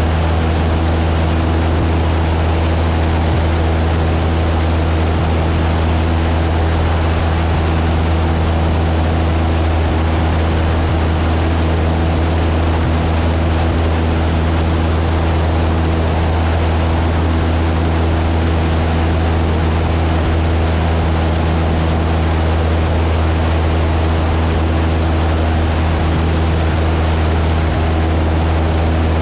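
Cessna 172's piston engine and propeller droning steadily in flight: a loud, even low hum with a rush of air over it, unchanging throughout.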